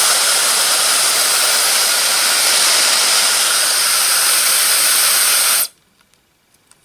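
High-speed YAPOY ionic hair dryer running at full blast: a loud, even rush of air with a hissy top end. It cuts off about five and a half seconds in, leaving a few faint clicks.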